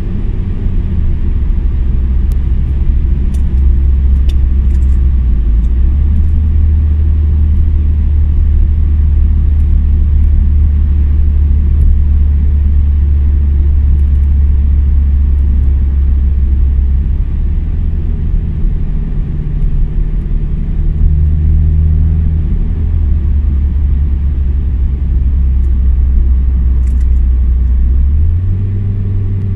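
Saab 9-5's 2.3-litre four-cylinder exhaust, running through a resonator delete and a Thrush Cherry Bomb turbo muffler, heard inside the cabin while cruising. A steady low rumble whose pitch shifts a little now and then, with road noise over it.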